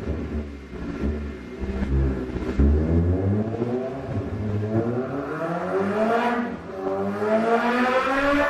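Suzuki GSX-S750 (GSR750) inline-four engine through a CS Racing aftermarket exhaust, running on a dyno. It gives a few low blips first, then the revs climb steadily, drop once near the end and climb again.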